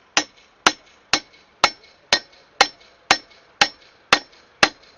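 A hammer striking a valve-guide driver, tapping a new valve guide into a VAZ 2110 cylinder head. Ten steady, even blows about twice a second, each a sharp knock with a short metallic ring.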